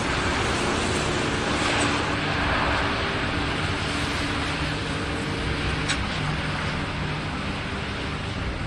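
Steady roar of a stormy sea and strong wind, heavy waves breaking against a rock breakwater, with a single short click about six seconds in.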